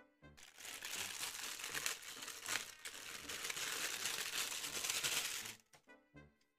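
Thin clear plastic bag crinkling loudly as it is handled and worked open by hand, for about five seconds before it stops.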